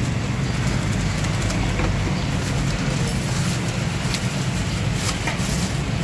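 Paper wrapping and a thin plastic bag crinkling as they are handled, strongest in the second half, over a steady low background rumble.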